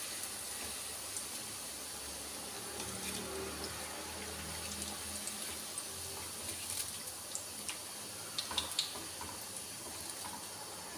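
Breaded chicken balls deep-frying in hot oil, a steady sizzle. A few light clicks near the end come from the wire strainer as the balls are lifted out.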